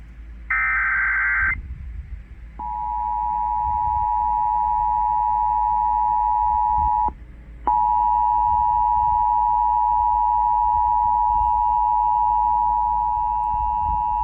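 Emergency Alert System broadcast: a one-second warbling SAME data burst, then the steady two-tone EAS attention signal. The tone breaks off about seven seconds in and starts again half a second later.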